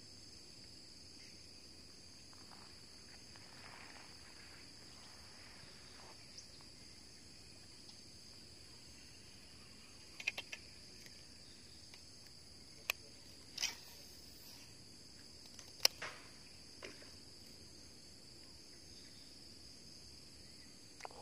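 Steady, high-pitched chorus of insects in grassland, with a few sharp clicks about halfway through.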